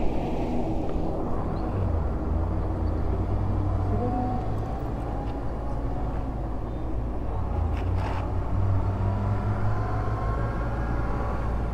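A motor vehicle engine running steadily, a low rumble, with a light click about eight seconds in.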